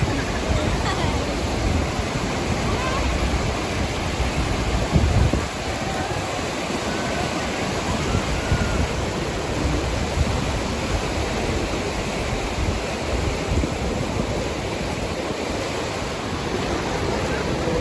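Surf breaking and washing up over shallow water on a sandy beach: a steady rush, with a louder surge about five seconds in.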